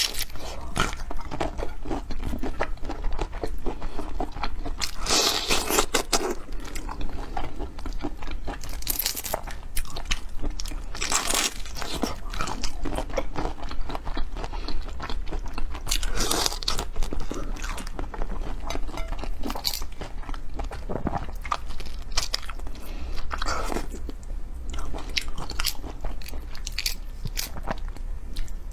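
Close-miked eating of seafood: crunchy biting and chewing, with a louder crunch every few seconds.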